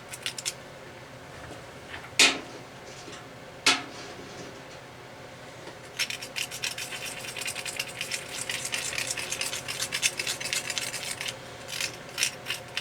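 A metal tool scraping and clinking in a small metal melting pot, cleaning out leftover solder residue. Two sharp knocks about two and four seconds in, then several seconds of quick scraping strokes, and a few clinks near the end.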